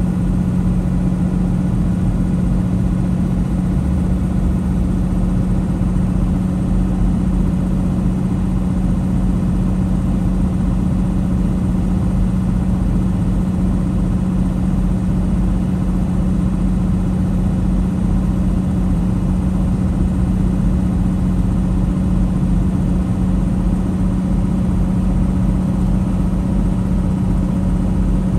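Semi truck's diesel engine running steadily on a long downhill grade, heard inside the cab as an unbroken drone with a constant hum.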